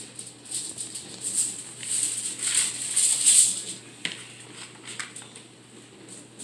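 Aluminium foil crinkling and rustling as it is folded around a food packet, in irregular bursts for about three and a half seconds, then a few light taps.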